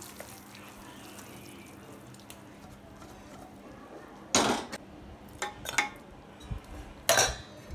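Metal utensil knocking and scraping against an aluminium degchi (cooking pot) as cooked mutton is spread over the rice: low kitchen hiss at first, then a sharp clatter about four and a half seconds in, a few lighter knocks, and another sharp clatter near the end.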